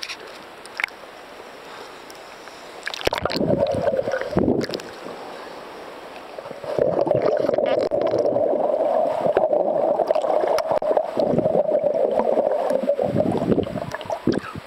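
Water rushing and bubbling around an action camera in its waterproof housing, muffled, with scattered clicks, as the camera goes below the surface. It comes in two loud stretches: about three to five seconds in, and from about seven seconds until just before the end.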